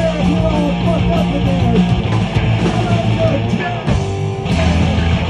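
Live punk rock band playing loud: electric guitar driving over bass and drums.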